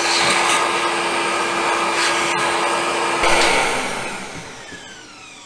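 Hercules dual compound miter saw motor running at full speed. It is switched off about three seconds in, and the blade spins down with a falling whine.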